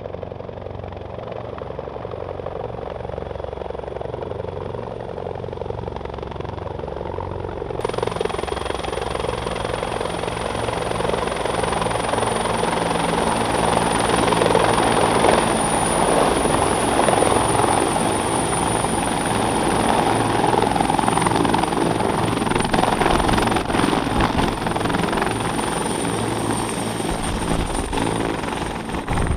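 Several military utility helicopters flying in, their rotors beating steadily under a thin high whine. The sound grows louder through the first half as a helicopter comes in close and low, then holds steady.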